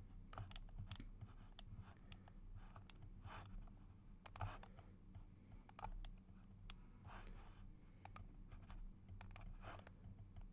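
Faint, irregular clicks of a computer mouse and keyboard being worked, over a low steady hum.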